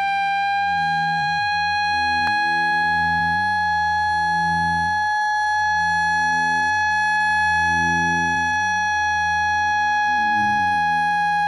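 A steady, unbroken tone with overtones, held at one pitch, over a low hum that slowly swells and fades.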